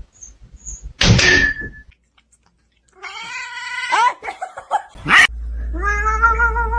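A cat yowling: a shorter wavering call about three seconds in that drops in pitch at its end, then a long drawn-out wavering yowl starting near the end. A brief noise comes about a second in.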